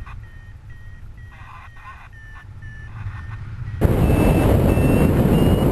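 Paragliding variometer beeping about twice a second, the climb tone that signals the glider is going up in lift, over a low wind rumble on the microphone. A little under four seconds in, loud wind noise comes in suddenly and the beeps are higher, rising in pitch from beep to beep.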